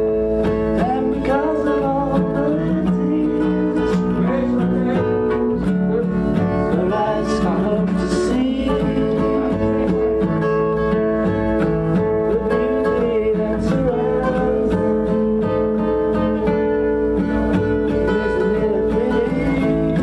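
Band music, slow held chords with guitars to the fore.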